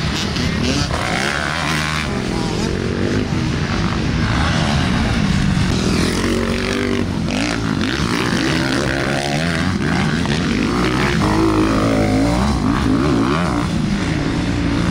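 Several dirt bike engines on a motocross track, revving up and dropping back as the riders accelerate, shift and brake. The overlapping engine pitches rise and fall over and over.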